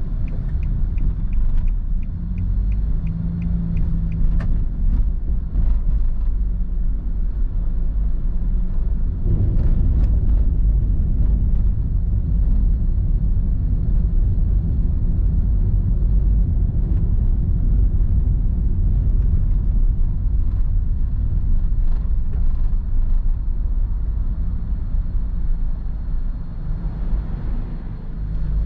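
Road and engine rumble heard inside a moving car's cabin. The turn-signal indicator ticks steadily for the first second or so and then stops as the turn is completed. The rumble swells about nine seconds in and stays steady after that.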